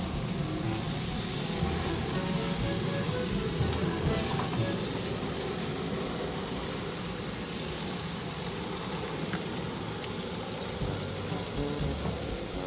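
Sauce-glazed pork ribs sizzling steadily on a hot grill grate.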